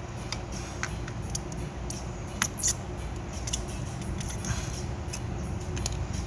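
Scattered light clicks and taps, a dozen or so at irregular intervals, over a steady low hum.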